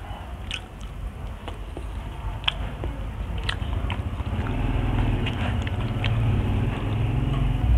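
Close-miked chewing and biting with wet mouth sounds and sharp little clicks, from eating pakbet vegetables and fried tilapia with rice by hand. A low rumble swells up in the second half.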